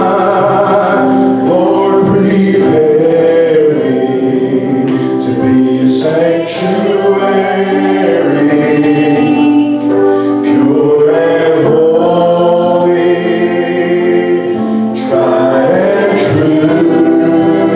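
Voices singing a gospel song, with long held notes changing from phrase to phrase.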